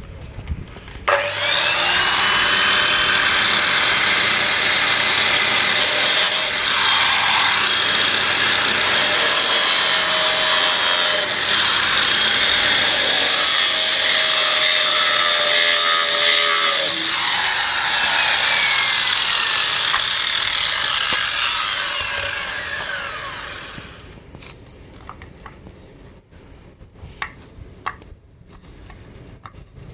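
Angle grinder with a cutoff disc grinding into 8 mm hardened-steel chain, making a loud, steady, harsh grinding noise. About two-thirds of the way in it comes off the work and its whine falls away as the disc spins down. A few light clicks follow near the end.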